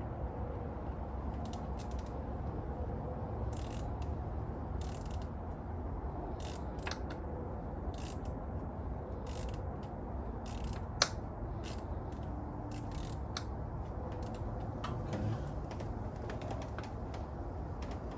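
Scattered clicks and clinks of a ratchet wrench and hand tools on bolts under the hood, with one sharp click about eleven seconds in.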